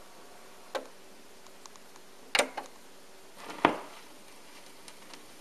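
Onkyo PL-25F linear-tracking turntable's control buttons and tonearm mechanism clicking as the arm is sent out over the record: a soft click under a second in, a sharp double click about two and a half seconds in, and the loudest, deepest knock about three and a half seconds in.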